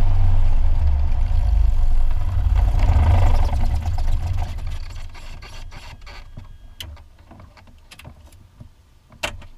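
Light aircraft piston engine idling, with a brief rise about three seconds in, then shut down, the propeller winding down to a stop over the next few seconds. Scattered faint clicks follow, with one sharp click near the end.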